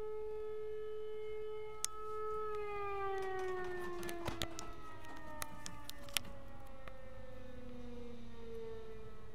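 A sustained siren-like drone with several overtones holds one pitch, then from about two and a half seconds in slides slowly downward, with more descending tones overlapping it. A few sharp clicks come through near the middle.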